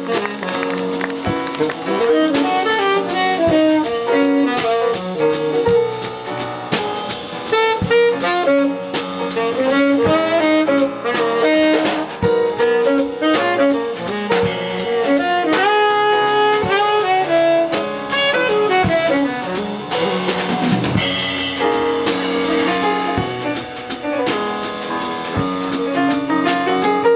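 Live jazz from a tenor saxophone, piano and drum kit: the saxophone plays a melody over piano chords and the drummer's kit.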